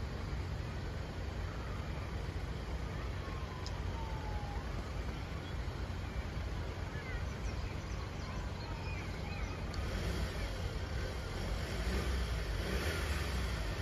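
Steady low rumble of road vehicles, with a few faint high chirps over it and a slight rise in level near the end.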